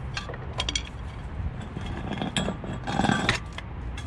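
Metal hand tools clinking and clattering as they are handled, a few separate clicks and clinks, with the loudest clatter about three seconds in.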